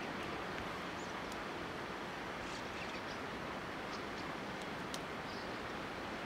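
Steady outdoor background noise, an even rumble and hiss, with a few faint, short, high chirps scattered through it.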